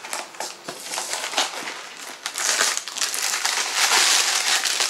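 Frozen-food packaging being handled and opened. Scattered crackles come first, then about two seconds of dense crinkling and crushing.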